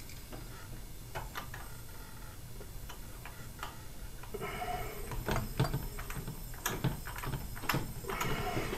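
Light clicks and knocks of a ratchet and socket turning an RB26DETT's crankshaft to top dead center for a leak-down test. A steady hiss of air through the leak-down tester comes in about four and a half seconds in and again near the end.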